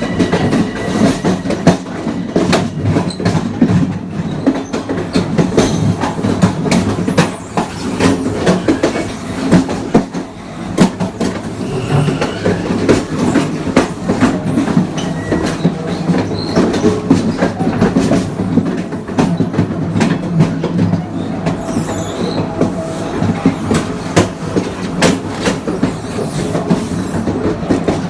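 Long Island Rail Road Kawasaki M9 electric multiple-unit train running at speed, its wheels clattering over rail joints and interlocking switchwork with many sharp clicks. Underneath is a steady low hum from the Mitsubishi (MELCO) AC traction motors and IGBT-VVVF inverter.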